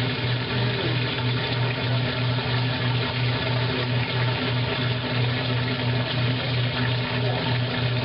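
1955 Blackstone washing machine in its neutral drain: the motor and drain pump run with a steady low hum while the soapy water rushes out of the tub.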